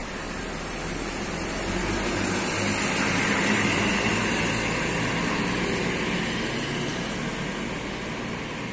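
Large coach bus engine running as the bus pulls away and drives past. The sound grows louder to a peak about three to four seconds in, then fades as the bus moves off down the road.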